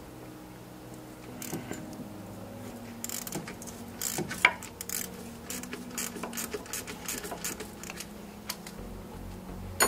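Ratchet wrench with a 14 mm socket clicking in short, irregular runs as the belt tensioner bolt is worked loose.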